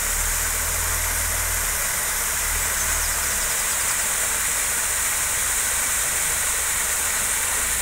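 Water from an artificial rock waterfall pouring and splashing into a shallow pool: a steady rushing hiss.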